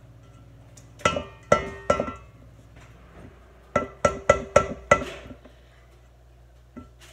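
A spatula rapped against the rim of a stainless steel mixing bowl to knock pumpkin puree off it: three sharp taps about a second in, then five quicker ones around the middle, each setting the bowl ringing briefly.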